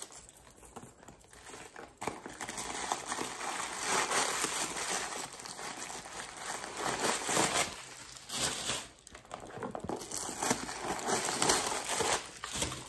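Crumpled paper stuffing crinkling and rustling as it is pulled out of a new leather handbag, in uneven swells of handling noise.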